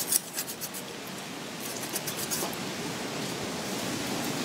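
Kitchen knife cutting through the fat and membrane of a raw lamb carcass: a quick run of sharp crackling cuts at the start and a few more about two seconds in, over a steady hiss.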